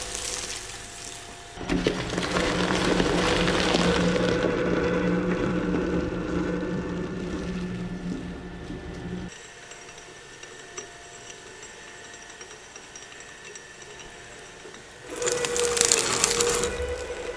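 Industrial shredder running with a steady motor whine, loudly crunching and grinding material through its cutters for several seconds, then running more quietly before a second short burst of crunching near the end.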